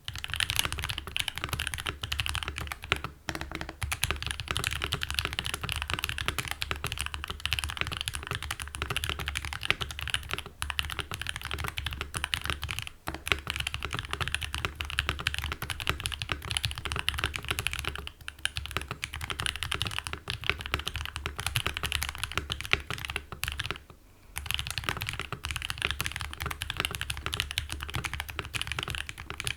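Continuous typing on a GK61V2 mechanical keyboard with hand-lubed Gateron Optical Yellow linear switches, a steel plate, double-shot ABS Cherry-profile keycaps, case and plate foam and a tape mod. The typing stops briefly about 3, 13, 18 and 24 seconds in.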